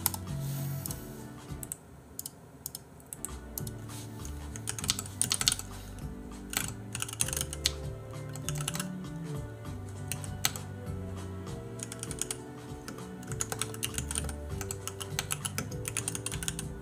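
Typing on a computer keyboard: runs of quick key clicks, heaviest in the middle and toward the end, over soft background music.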